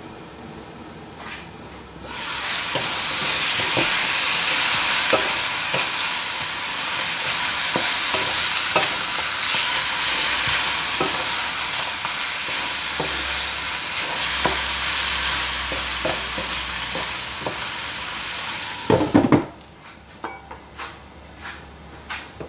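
Chicken pieces frying in a non-stick wok: the sizzle jumps up about two seconds in as the pan is uncovered, with scattered clicks of stirring against the pan. Near the end a loud clatter comes as the glass lid goes back on, and the sizzle drops to a faint hiss.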